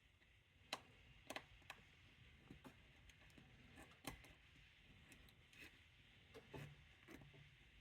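Faint, irregular small clicks of a lock pick and tension wrench working the pin stacks inside a Brinks 38mm padlock, about eight ticks spread over several seconds.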